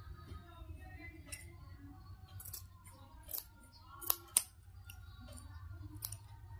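Scissors snipping through a small folded piece of dress fabric: a handful of separate sharp snips, the loudest two close together about four seconds in.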